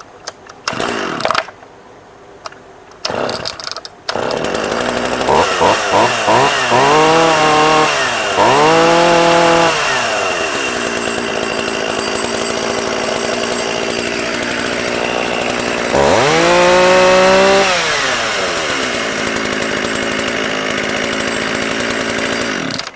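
Shindaiwa 488 two-stroke chainsaw being pull-started: a few pulls on the starter cord, then it catches about four seconds in. It is revved up and down several times, settles to idle, revs hard once more and idles again, then is shut off just before the end. It is running well and strong.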